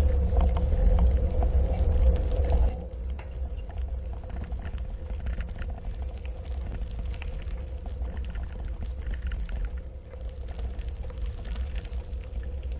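Bicycle rolling along a packed-gravel trail, heard from a camera riding on the bike: low wind and tyre rumble with small rattles and crunches and a steady hum. It is loudest for the first few seconds, then drops and settles.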